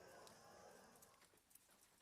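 Faint, soft snoring breath of a sleeping border collie, fading out about a second in, over light rain ticking on a window.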